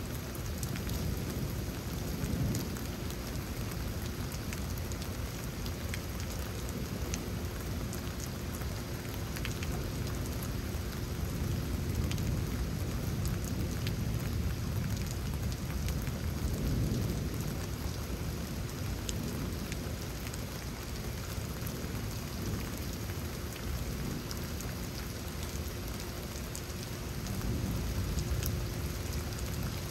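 Steady rain during a thunderstorm, with scattered drop ticks. Low rumbles of thunder swell and fade a few times, most strongly in the middle and again near the end.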